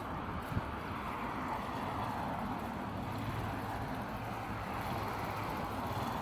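Steady road-vehicle noise: a motor vehicle's engine humming low under a haze of road and tyre noise that swells slightly partway through.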